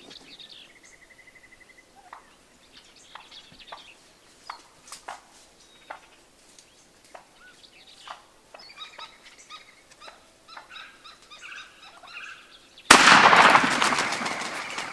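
Gould's wild turkeys calling, with short clucks and a rapid rattling gobble, then a single loud shotgun shot about 13 seconds in, its report dying away over the last two seconds.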